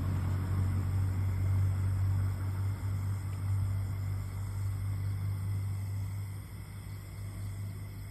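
A steady low hum from a wooden rat-vibrating stake driven into the ground and worked by hand, the rural Isan way of shaking rats out of their burrows. The hum eases a little near the end.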